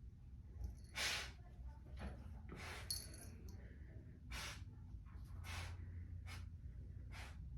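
Faint breathing: several short breathy puffs at irregular intervals over a low steady hum.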